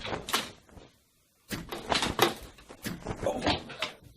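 A run of knocks and clattering, like a door or cupboard being handled, broken by a short silence about a second in.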